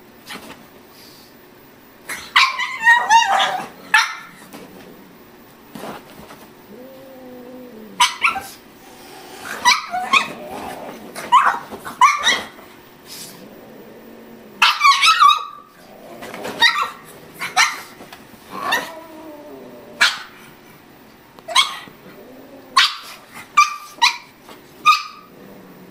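Pug barking in repeated bursts of quick, sharp barks, with single barks spaced out toward the end.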